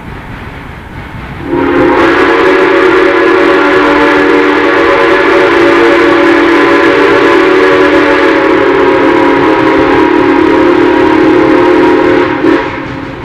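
Steam whistle of Western Maryland Scenic Railroad 1309, a 2-6-6-2 Mallet steam locomotive, blowing a chord of several tones. One long blast starts about a second and a half in and holds for about ten seconds, followed by a short toot.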